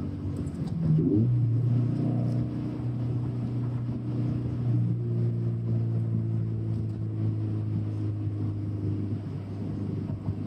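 Flat-four engine of a first-generation FR-S/BRZ/GT86 sports car droning steadily under way, heard from inside the cabin over tyre and road noise. The engine note rises and gets louder about a second in, then holds at a steady cruise.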